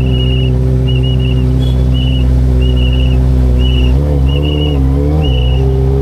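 Kawasaki ZX25RR's 250 cc inline four idling steadily, with two light throttle blips in the second half. Over it, a shrill whistle sounds in repeated short toots.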